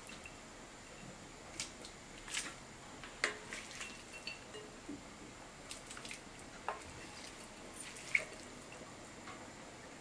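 Shredded boiled chicken dropped by the ladleful into a pot of simmering wheat porridge for harissa: scattered soft wet plops and drips, with a few light clicks of the ladle.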